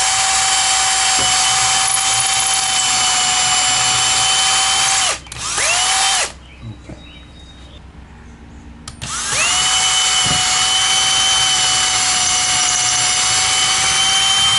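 Cordless drill boring starter holes through a white composite storage track into a wall stud: it runs at a steady whine for about five seconds, stops, gives a short burst, falls quiet for about three seconds, then spins up again and runs steadily.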